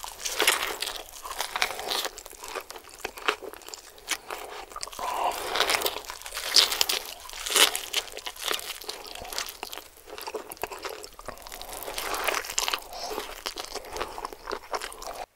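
A man biting into and chewing a cheeseburger, heard as a dense run of small sharp clicks and crackles of mouth and food sounds.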